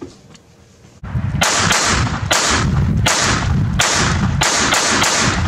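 A Glock 44 .22 LR pistol firing a rapid string of shots, about two a second, starting about a second in.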